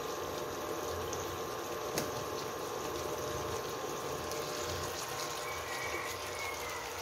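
Bacon strips sizzling and crackling in hot coconut oil in a frying pan, a steady fizz with a single sharp click about two seconds in.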